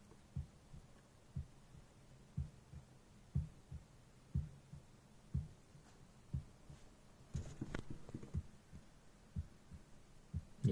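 Music with a steady bass beat, about two thumps a second, playing faintly through newly wired Pioneer TS-G1030F car speakers lying loose on the dashboard, not yet fitted.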